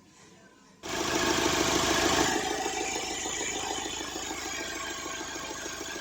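Freshly overhauled Mahindra XUV500 2.2-litre mHawk four-cylinder diesel engine starting about a second in, running faster for a moment, then settling to a steady idle.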